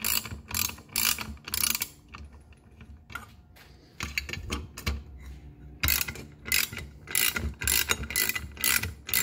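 Hand socket ratchet clicking in quick back-and-forth strokes, about three a second, as it turns out the cover-plate bolts of an EZGO golf cart's CVT drive clutch. It pauses for a couple of seconds about two seconds in, then starts again.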